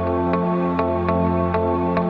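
Background music: held chords over a steady low bass, with a light regular beat about twice a second.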